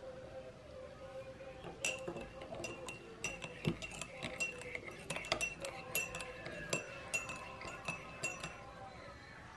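A metal teaspoon stirring tea in a ceramic mug, clinking rapidly and repeatedly against the inside of the mug, which rings after each strike. The clinking starts about two seconds in and stops shortly before the end.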